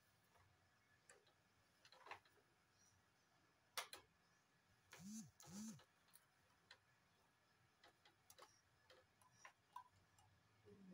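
Near silence broken by scattered faint clicks and knocks from a plastic baby walker as a baby climbs about in it, with one sharper knock about four seconds in. About five seconds in come two short sounds that rise and fall in pitch.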